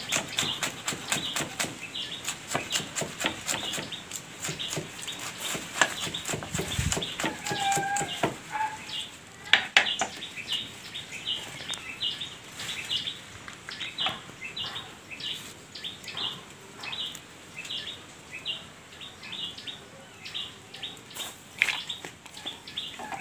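Kitchen knife chopping winged beans on a wooden cutting board: quick, rapid knocks of the blade on the wood that thin out about halfway through. In the second half a bird chirps over and over, about twice a second.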